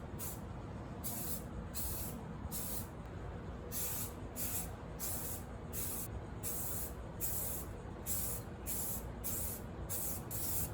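Aerosol can of self-etching primer spraying in short hissing bursts, about two a second, as bare-metal spots are spot-primed.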